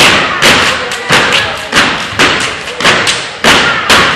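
Step team stepping in unison: sharp stomps and claps about twice a second, each hit echoing briefly in the gymnasium.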